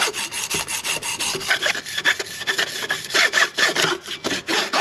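A strip of crocus cloth pulled rapidly back and forth around a steel Corvair crankshaft journal, rubbing in quick, even strokes as it lightly polishes the journal.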